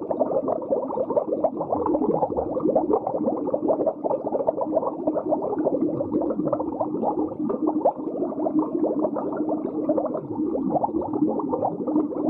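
Muffled underwater ambience sound effect: continuous dense bubbling and gurgling over a low steady hum.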